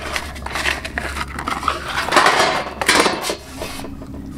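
Sheet-metal electrical panel covers and a meter ring being handled and shifted on the ground: irregular metallic clatter, knocks and scraping.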